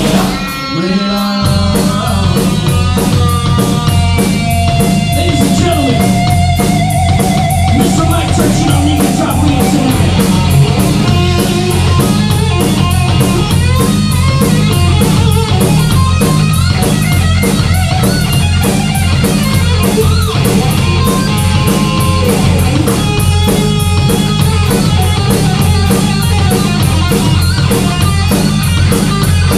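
Live rock band playing loud, with electric guitars, bass guitar and drum kit. The band breaks off briefly about a second in, then comes back in full.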